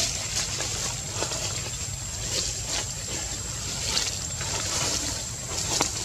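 Outdoor ambience: a steady hiss with a thin, high continuous tone above it and scattered soft clicks and rustles.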